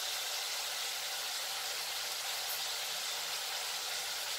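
Onions, green chillies and tomato sizzling steadily in hot coconut oil in a pan.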